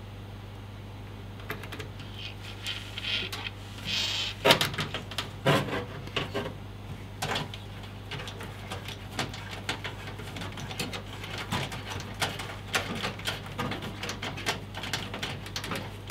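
Irregular metal clicks, taps and short scrapes of a motherboard being positioned in a steel PC case and screwed down with a hand screwdriver, loudest about four to six seconds in, over a steady low hum.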